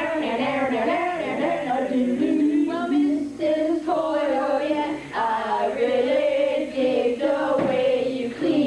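A small group of boys singing a song together, with several long held notes.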